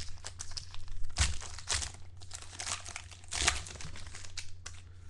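A Panini Playbook football card pack's wrapper being torn open and crinkled by hand. A run of sharp crackles, loudest about a second in and again about three and a half seconds in, over a low steady hum.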